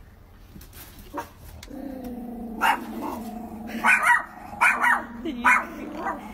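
Small dogs growling low and steadily, with sharp barks breaking in about half a dozen times.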